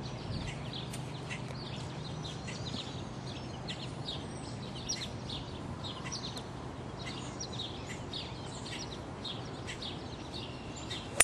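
Songbirds chirping, many short high calls a few per second, over a steady low background hum. Right at the end comes one sharp crack of a driver striking a golf ball off the tee.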